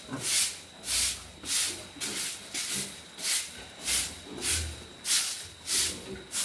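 Broom sweeping a pig pen floor in quick, even strokes, a swish about every half second.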